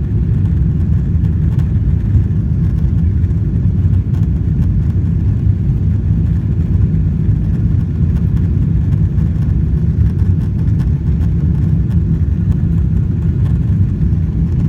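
Steady low rumble of a moving vehicle heard from inside its cabin, even in level throughout.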